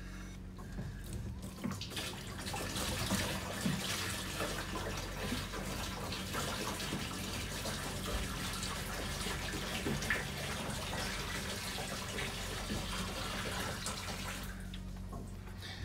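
Rainwater poured from a bucket into a boat's water-tank filler opening in the cabin floor: a steady gushing splash into the tank that starts a second or two in and stops shortly before the end.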